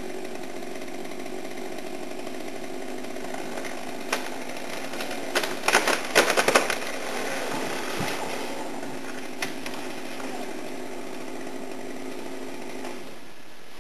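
Chainsaw running steadily as it cuts, with a quick series of loud, sharp cracks about six seconds in and a couple of single clicks either side.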